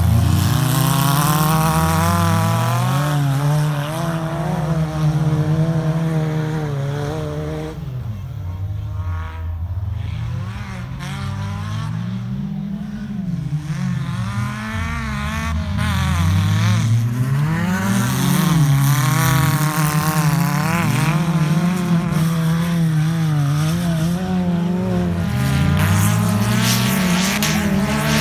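Old wreck-race cars' engines racing on a dirt track, revving up and dropping back over and over as they accelerate and lift off. The engines fade a little in the middle as the cars pull away, then grow loud again as they come back past.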